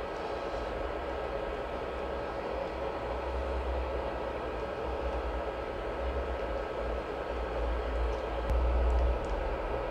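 Air conditioner running with a steady hum. A few faint clicks and a brief low bump come near the end.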